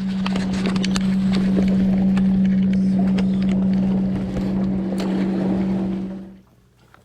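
Boat engine running steadily with a low hum, with water and scattered clicks over it; it cuts off suddenly about six seconds in.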